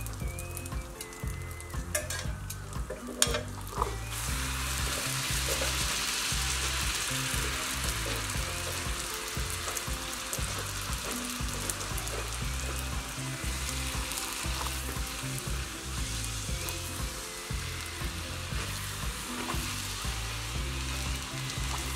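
Bhatura deep-frying in hot oil, a steady sizzle that grows louder about four seconds in, with a few sharp clicks a couple of seconds in. Background music with a steady low beat plays underneath.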